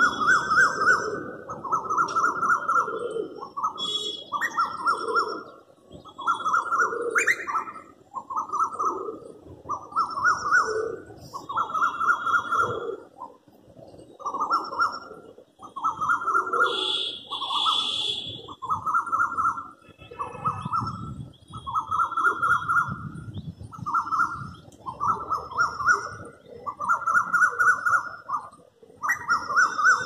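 A cuckoo screaming over and over: shrill calls of rapid notes, each about a second long and rising a little in pitch, about two every three seconds with brief breaks. Smaller birds chirp faintly above it.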